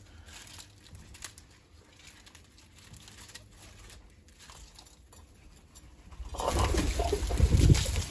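Faint, irregular rustling and light clicks, as of a small kitten's paws among dry fallen leaves on concrete, then a loud, low rumbling noise for about two seconds near the end.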